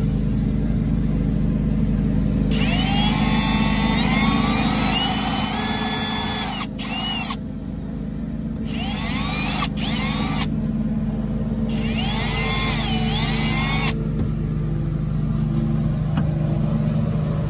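Milwaukee cordless drill with a step bit drilling out the pinhole in a plastic bed plug. It runs in about four short bursts, each spinning up with a rising whine, over a steady low hum.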